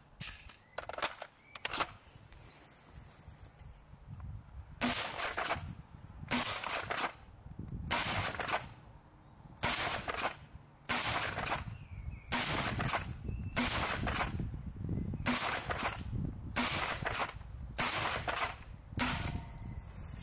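Spring-powered foam dart blaster with Jet Blaster Omega LS metal internals in an Xzeus 2 (Nerf Longshot-style) shell, being primed and fired shot after shot: a series of sharp clacks and snaps roughly every one to two seconds, about ten shots in all.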